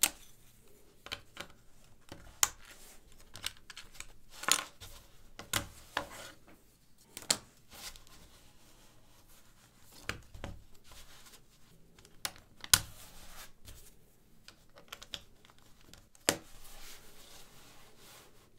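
LEGO plates being snapped together and pulled apart by hand: sharp plastic clicks at irregular intervals, roughly one a second with short pauses between.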